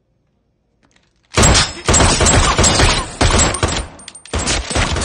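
Rapid gunfire from two guns fired at close range: a fast, continuous volley starts about a second and a half in, breaks briefly near four seconds, then resumes.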